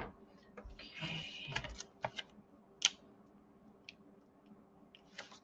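Paper and cardstock handling: about a second of rustling and sliding, then a handful of light, sharp clicks and taps as pieces are picked up and set down on the cutting mat.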